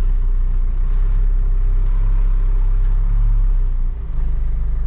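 Hino cab-over box truck's diesel engine idling, heard from inside the cab as a steady low rumble. About four seconds in the sound dips briefly and settles into a fast, even throb.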